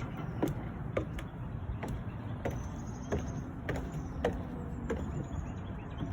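Strong gusty wind blowing, a steady low rush of wind noise, with irregular sharp ticks or taps about every half second to second.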